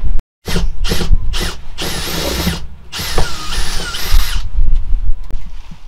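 Power drill run in three quick trigger pulls, then in three longer runs of about half a second each. Its motor whine holds steady in some runs and slides down in pitch in others.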